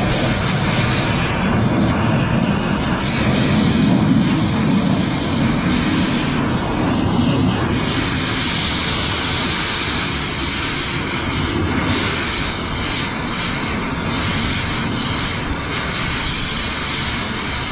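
Oxy-fuel cutting torch with its flame on a clamped steel drain-cleaning cable, cutting through it with a loud steady hiss that swells brighter several times.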